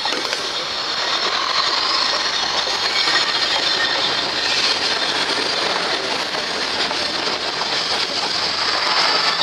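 Diesel light-rail railcar (VLT) passing close by at low speed: steady rolling noise of wheels on rails, with a thin high squeal from the wheels running through it.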